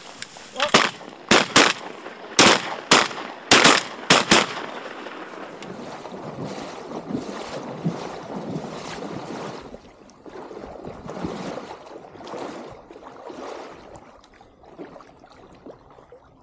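About eight loud, sharp sounds in quick succession over the first four seconds, then a hunter wading through the lake in waders, the water sloshing and splashing around his legs.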